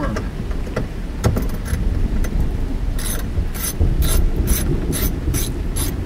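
Hand ratchet clicking as it turns down a 7 mm trim bolt, in an even run of about three clicks a second through the second half, with a few single clicks before that. A steady low rumble of rain and storm noise runs underneath.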